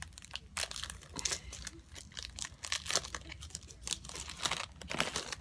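A Topps WWE trading card pack being torn open by hand, its wrapper crinkling and crackling in quick irregular handling sounds.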